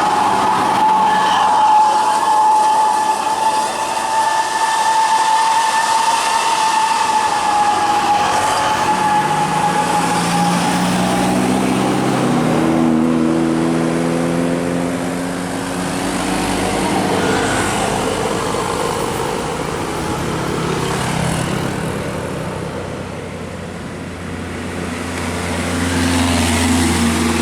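Road vehicles passing. A steady high whine fades out about ten seconds in, then engine noise rises and falls in pitch as vehicles go by.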